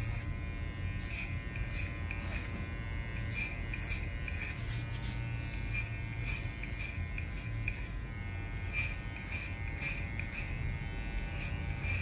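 Madeshow cordless hair clipper running with a steady motor buzz while cutting hair over a comb, with short crackles a few times a second as the blade bites into the hair.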